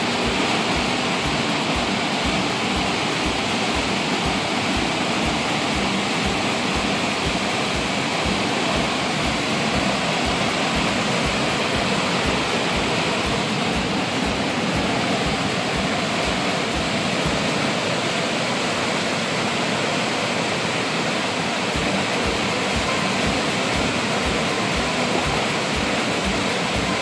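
Floodwater let out of a full lake, rushing and churning through turbulent, foaming rapids: a steady, loud rush of water.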